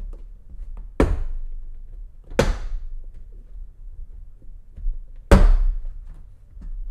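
Plastic retaining clips of a Toyota 4Runner's rear hatch trim panel popping loose as the panel is pulled off by hand: three sharp pops, the last the loudest.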